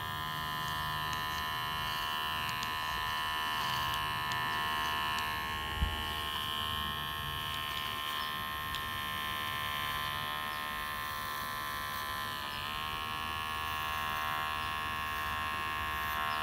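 Cordless electric pet hair clipper running steadily against a cat's chin fur, shaving away the black flakes of feline acne; its hum dips briefly in pitch a few times. A single short thump about six seconds in.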